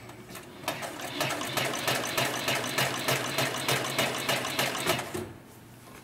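204-370 heavy-duty two-needle upholstery sewing machine stitching through thick leather, running at a steady pace of about three stitches a second. It starts about half a second in and stops about five seconds in.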